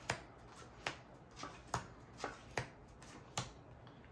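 Casino chips and playing cards handled on a blackjack table: about seven sharp clicks, irregularly spaced.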